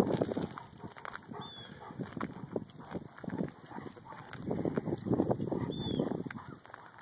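Footsteps crunching on a thin layer of snow over pavement, dense and louder at the start and again from about four and a half to six seconds in.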